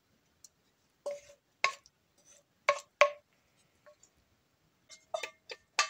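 A spoon clinking and scraping against a frying pan while serving a saucy topping onto plates. There are a few sharp clinks with a short metallic ring, spaced out at first, then a quicker run of them near the end.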